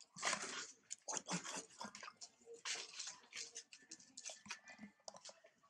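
Water splashing and lapping in a large ceramic jar as macaques paddle their hands in it and drink: a quick run of short, irregular splashes.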